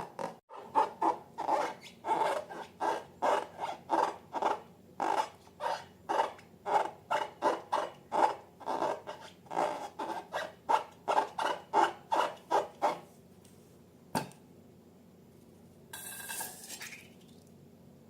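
Slime being squished by hand in a regular rhythm, about three wet squelches a second, which stop about 13 s in. A single sharp click follows, then a brief rustling noise near the end.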